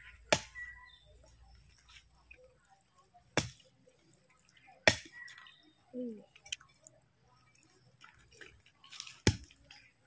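Four sharp smacks spread over several seconds, with faint chewing sounds between them.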